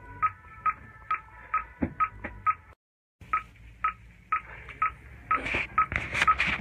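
Rapid, regular electronic beeping, about two short beeps a second at one steady pitch. The sound cuts out completely for a moment a little under three seconds in.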